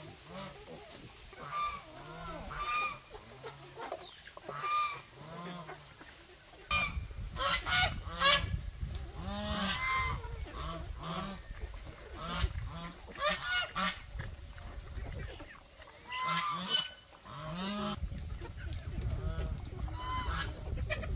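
A pen of wild boars, piglets and chickens calling at feeding time: low grunts mixed with many short, higher squeals and clucks, coming thick and fast in the middle.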